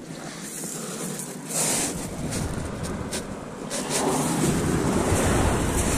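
Rustling and knocking of fishing gear and a bag being handled close to the microphone, over a low rumble that grows louder about four seconds in.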